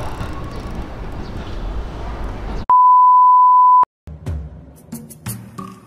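Outdoor background noise with a low rumble, cut off about two and a half seconds in by a loud, steady edited-in electronic beep lasting about a second; then background music starts.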